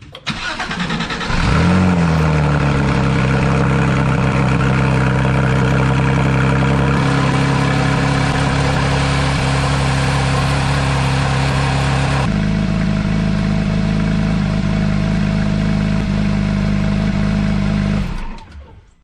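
Porsche 991.1 GT3's 3.8-litre flat-six cold-starting through an aftermarket Top Speed center exhaust: a brief crank, then it catches with a rev flare about a second and a half in and settles into a loud, steady cold idle. The idle's tone changes abruptly about twelve seconds in, and the engine is shut off near the end.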